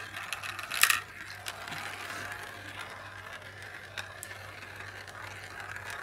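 Glass marbles rolling round the clear plastic funnel bowls of a marble run, a steady rolling rattle. One sharp clack comes a little under a second in and a fainter one near four seconds, as marbles strike the plastic.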